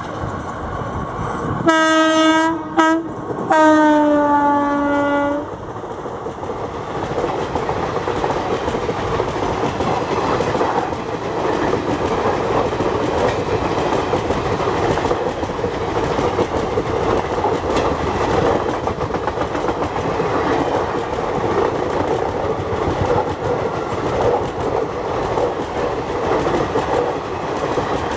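A WAP4E electric locomotive's horn sounds in short blasts about two seconds in, the last held nearly two seconds and dropping slightly in pitch. Then the express's passenger coaches run past at speed: a steady loud rumble with wheels clattering over the rail joints.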